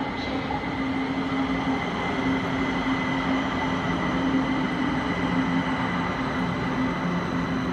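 Kaohsiung MRT Red Line metro train pulling into a station: steady running noise with a motor hum and a thin high whine, a second, lower hum tone joining about halfway through.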